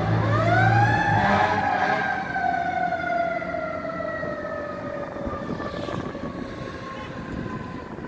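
Fire engine siren winding up in a quick rising sweep, then slowly sinking in pitch and fading as the truck drives away. A low steady hum underneath stops a little over a second in.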